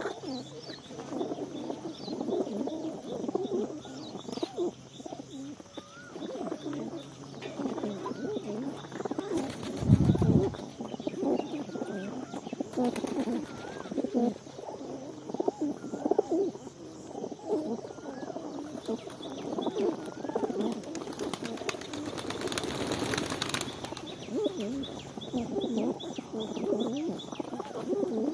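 A flock of birds calling: many low calls overlapping without a break, with faint higher chirps above them. A single loud thump comes about ten seconds in, and a short rushing burst of noise comes near the end.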